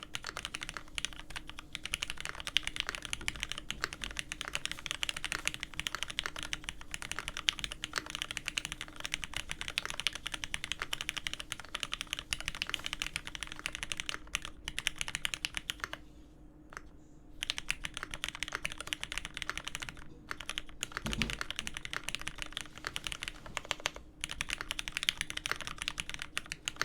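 Continuous fast typing on a Dolphin Special Ver.2021 mechanical keyboard with an aluminium plate, lubed Hyperglide Cherry Black linear switches on 67g springs and GMK keycaps. The keystrokes run densely and stop for about a second and a half roughly two-thirds of the way through.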